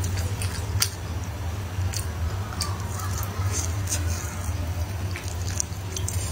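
Close-miked chewing and biting of pieces of glazed meat: many short, sharp wet smacks and clicks over a steady low hum.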